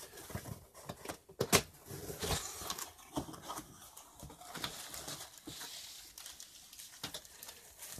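Someone wrestling open a rifle's shipping box: scraping and rustling as it is handled, with sharp knocks and clicks, the loudest about a second and a half in.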